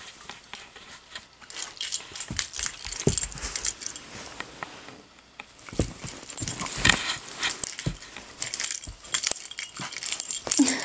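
Doberman puppy playing roughly with a hairbrush: her collar jingles and there is scuffling and clatter in two spells, with a lull a little before the middle. A short whimper comes at the very end.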